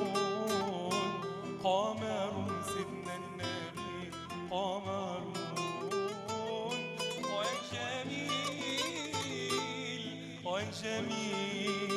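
Live acoustic music: a nylon-string classical guitar played under a man singing long, wavering melismatic lines, in an Egyptian song praising the Prophet (madih).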